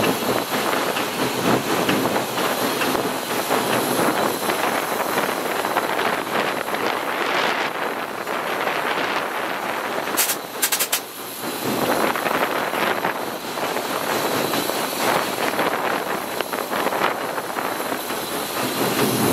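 Cab ride on Everett Railroad's 2-6-0 steam locomotive No. 11 under way: a steady rush of steam, running gear and wheels on the rails. About halfway there is a brief dip with a few sharp high ticks.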